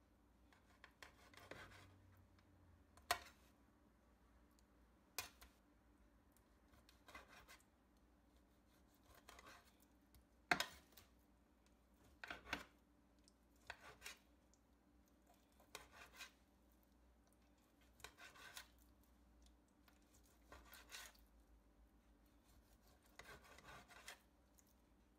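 Kitchen knife slicing raw chicken breast on a glass dish: a dozen or so short cutting strokes a second or two apart, several ending in a sharp click of the blade on the glass.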